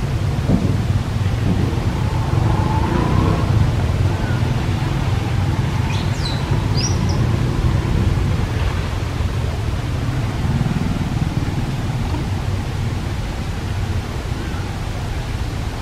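Steady low rumble of wind buffeting the microphone outdoors, with a few faint, short high chirps about six to seven seconds in.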